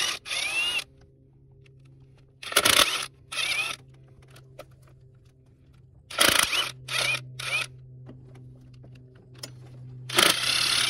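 Ryobi ONE+ HP cordless impact wrench run in four groups of short trigger pulls with a rising motor whine in each, spinning out the four bolts that hold down the fuel rail.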